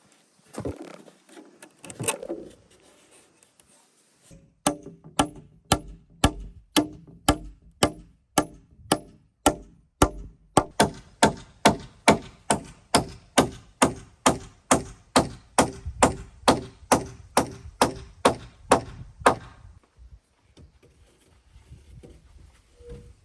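A tool striking wood in a steady rhythm, about two blows a second, some thirty in all, starting about four seconds in and stopping a few seconds before the end. A few scattered knocks come first.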